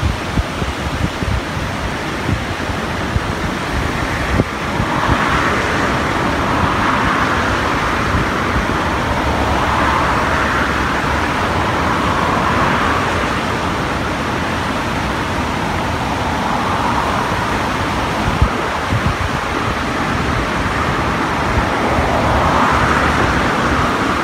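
Steady rushing of a rain-swollen, muddy river, swelling and fading every few seconds. Wind buffets the microphone in the first few seconds.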